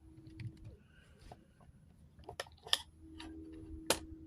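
Light, irregular plastic clicks and taps from an action figure and its display stand being handled, the sharpest click a little before the end. A faint steady hum sits under the second half.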